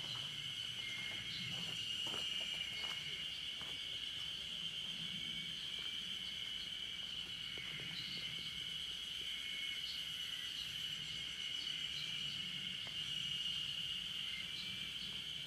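A chorus of insects buzzing steadily at a high pitch, with a second, broken buzz just below it.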